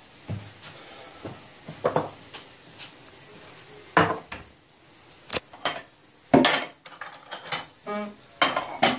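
Kitchen clatter: a string of separate knocks and clinks as tableware and a plastic jar are handled and set down on a granite countertop, the loudest clatter about six and a half seconds in.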